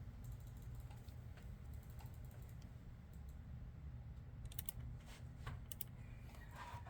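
Computer keyboard typing: scattered single keystrokes with a couple of quick runs of keys around the middle, faint, over a low steady hum.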